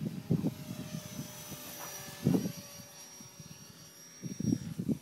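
Electric motor and rotor whine of a Blade 400 3D RC helicopter, a thin steady high tone whose pitch bends slowly. Gusts of wind buffet the microphone near the start, about two seconds in and near the end.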